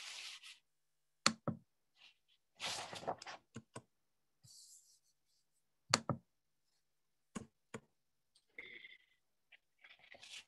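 About seven sharp clicks and knocks, some in quick pairs, between short bursts of rustling or breath noise in a quiet small room.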